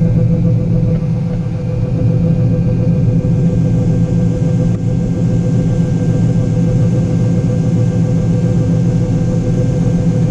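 John Deere 9500 combine's six-cylinder diesel and machinery running at a steady, loud drone with a constant hum.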